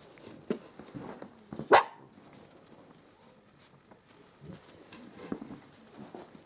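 A Samoyed barks once, loudly, a little under two seconds in, with a few much fainter short sounds before and after.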